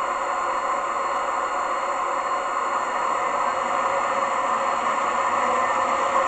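Class 68 diesel locomotive engine sound from a DCC sound decoder, played through a model locomotive's small speaker: the engine running steadily, getting slightly louder after about four seconds.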